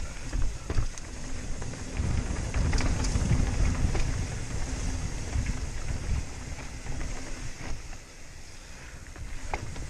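Wind buffeting a helmet-mounted microphone over the rumble of a Rocky Mountain Slayer mountain bike's tyres rolling down rocky sandstone trail, with scattered clicks and rattles from the bike over bumps. The rumble is heaviest in the middle and eases near the end.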